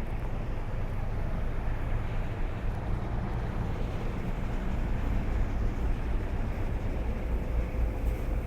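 Steady low rumble and rushing noise aboard a ship under way at sea.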